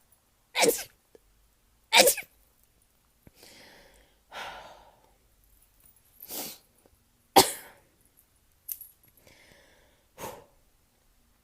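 A woman's rapid, sharp sneezes in a run: two about a second apart, then a pause with fainter breathy sounds, two more close together around the middle, and a last one near the end.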